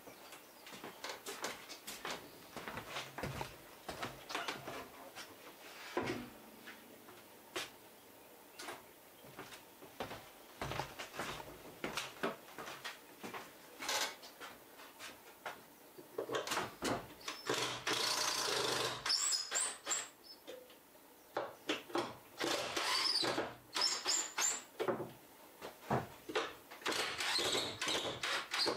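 Knocks and clicks of handling against a wooden wall, then a cordless drill-driver running in several longer bursts on screws in a wooden wall-mounted rack, over the second half.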